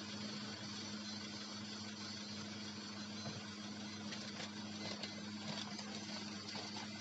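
Steady low mechanical hum under an even hiss, the running noise of a doughnut stall's deep fryer and refrigerated counters, with a few faint light clicks.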